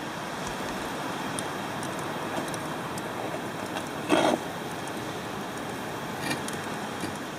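Marinated chicken skewers sizzling over hot charcoal: a steady hiss with scattered small crackles. A brief louder burst about four seconds in, as the skewers are handled.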